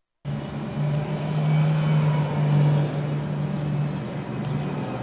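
A loud, steady engine-like drone with a strong low hum cuts in suddenly, swells a little and eases slightly near the end: the sound of the UFO overhead.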